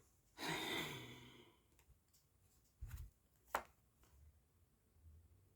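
A woman's long sigh, breathy with a falling voice, followed by a soft low knock and then a single sharp click.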